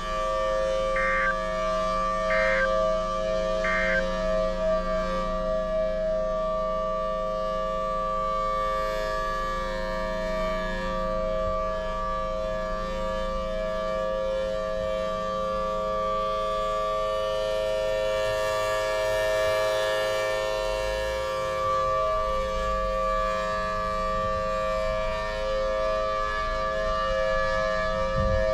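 Federal Signal Thunderbolt outdoor warning siren sounding a steady full-alert tornado warning: a loud, sustained chord of tones that holds its pitch throughout.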